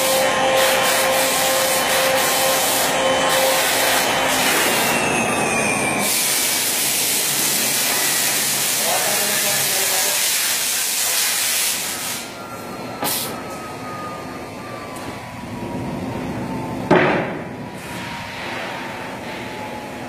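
CNC router running with a loud steady rushing noise, then its spindle whine falls slowly in pitch as it winds down, the rushing dropping off about twelve seconds in. A single sharp knock comes near the end.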